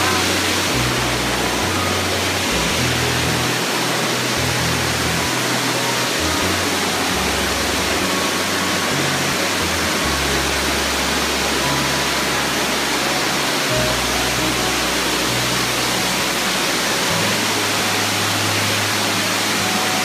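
Steady rushing roar of Amicalola Falls, a tall waterfall cascading over rock ledges, heard from close by. Background music's low bass notes change in steps underneath.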